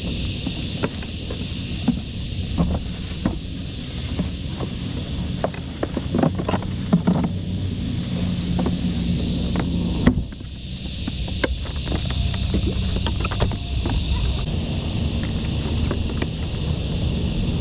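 Steady high-pitched drone of cicadas under a low rumble, with scattered clicks and knocks of gear being handled on a plastic kayak. Everything dips briefly about ten seconds in.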